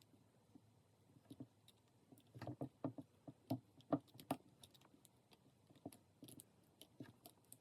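Faint, scattered clicks and scrapes of a tool prying the plastic side molding off a Samsung Galaxy Z Flip 4's screen, in two short clusters.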